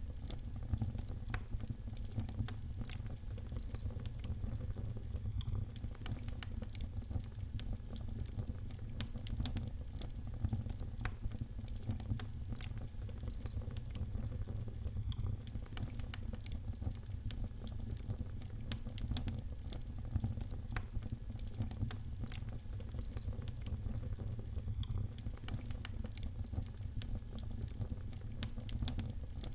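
Wood fire crackling in a fireplace: many irregular sharp pops and snaps over a steady low rumble of the flames.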